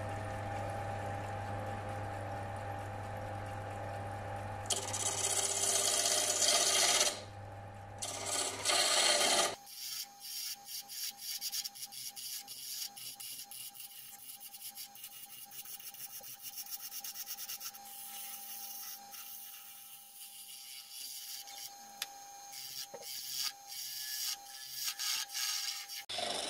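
Wood lathe running with a steady hum while a turning tool cuts a spinning wooden blank, the cutting louder about five to nine seconds in. After about ten seconds the hum drops away and the cutting goes on as a quick run of short scraping strokes.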